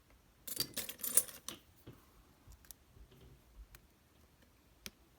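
Lock pick scraping and clicking against the pins inside a Pachislo slot machine's pin-tumbler lock, working an overset pin. A burst of metallic rattling about half a second in, then faint scattered clicks.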